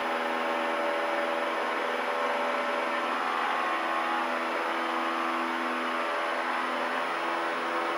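Cessna 172's piston engine and propeller running steadily at takeoff power during the takeoff roll of a touch and go, after flaps up and carb heat in.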